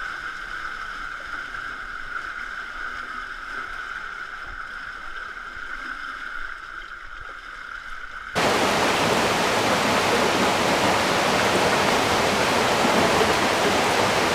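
A steady high buzz over faint flowing water, then about eight seconds in a sudden cut to the loud, steady rush of a large waterfall.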